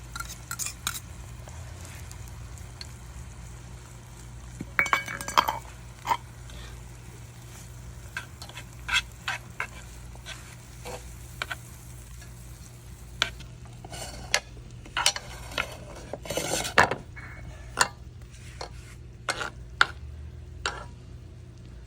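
Metal utensils scraping and clinking against a pan while a steak is handled, with many short separate scrapes and clicks scattered throughout.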